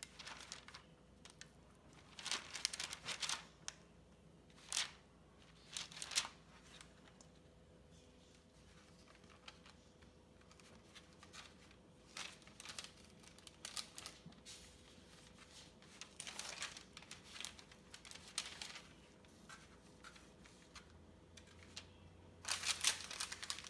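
A spoon scraping cookie dough and parchment paper crinkling as dough balls are set down on a lined baking sheet. The scrapes and rustles come in short, irregular bursts, with a busier cluster near the end.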